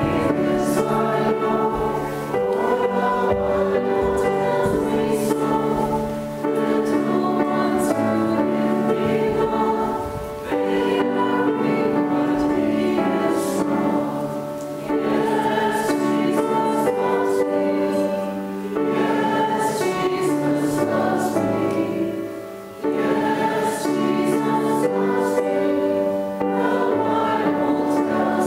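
A church choir singing a slow song in phrases about four seconds long, with a short break between each.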